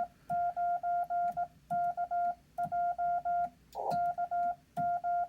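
Morse code (CW) tone from an amateur HF radio, a single steady pitch keyed on and off in short dits and longer dahs at a slow, even sending speed, grouped into characters with pauses between. A brief burst of noise comes just before the tone resumes, about four seconds in.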